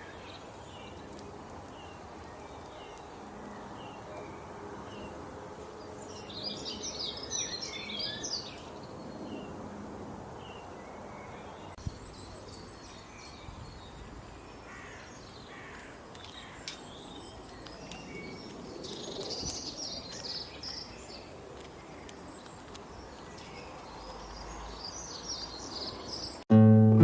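Several birds chirping and calling over a steady outdoor background hiss. Short repeated chirps are joined at times by bursts of busier calls. Acoustic guitar music begins right at the end.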